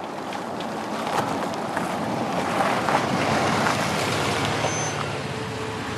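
A car driving along a dirt track, its engine and tyres growing steadily louder over the first few seconds as it approaches.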